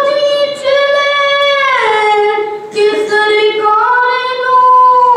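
A boy singing a naat, a devotional Urdu song, solo and unaccompanied in a high voice. He holds long notes, drops in pitch about two seconds in, takes a short breath, then sings a second held phrase that falls again at the end.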